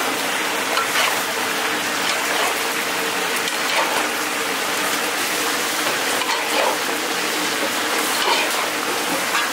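Strips of fish cake stir-fried with onion and carrot in a large nonstick pan: a steady sizzle with the repeated scrape and rustle of a spatula tossing the strips, over a steady low hum.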